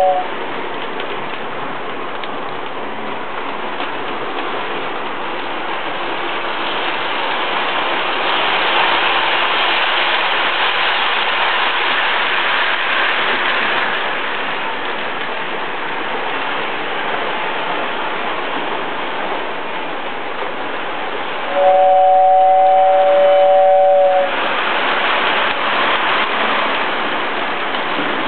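Lionel toy train running along its track with a steady rumbling hiss. About three-quarters of the way through, its two-note horn sounds once for between two and three seconds.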